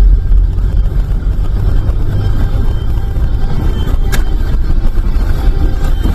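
Steady low rumble of a car driving, road and engine noise, with a single short click about four seconds in.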